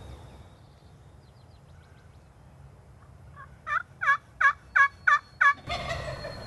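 Wild turkey calling at close range: a run of six loud yelps, about three a second, each dropping in pitch, followed by a longer, rougher call about six seconds in.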